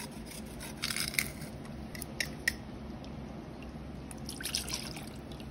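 Kitchen prep sounds in a stainless steel bowl: a short scraping of ginger on a fine metal grater about a second in, a few small clicks, then dark sauce poured splashing from a measuring cup near the end.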